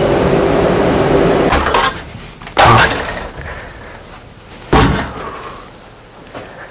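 A door banging twice as it is pushed open, two sharp knocks about two seconds apart.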